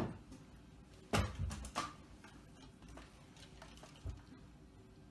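A few sharp clicks and knocks, about a second in and again near two seconds, then a dull thump around four seconds, as an AK-style rifle is picked up and handled.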